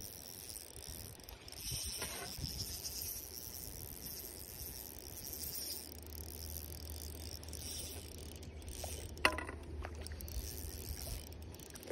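A hooked trout splashing at the surface as it is brought to the landing net, with one sharp splash about nine seconds in. A faint steady high hiss runs underneath.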